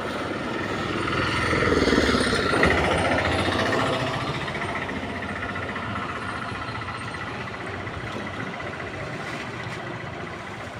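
A small engine running with a rapid pulse, growing louder to about two seconds in, then easing off and running on steadily.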